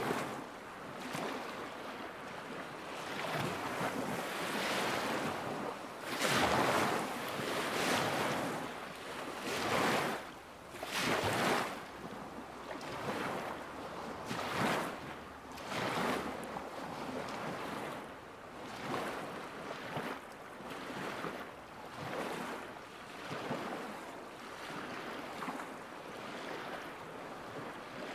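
Small lake waves lapping at the shore, coming in irregular swells every second or two.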